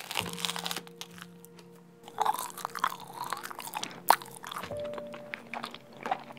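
Close-up chewing of a bite of rye bread spread with custard cream: crunchy crackles from the bread, with a sharper crunch about four seconds in. Soft background music plays underneath.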